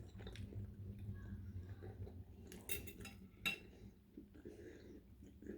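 Faint chewing and mouth sounds of someone eating curry chicken legs and pasta close to the microphone, with a few sharp clicks about halfway through over a low steady hum.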